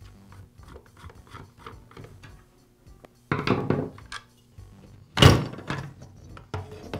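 A screwdriver turning a screw out of a plastic chainsaw housing, with light clicks, then a clatter as the screwdriver is laid on the wooden bench about three seconds in. A sharp knock about five seconds in comes as the plastic top handle is worked off.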